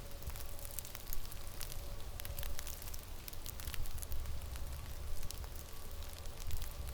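Blizzard wind rumbling on the microphone, with many small sharp crackles and ticks scattered through it and a faint steady hum underneath.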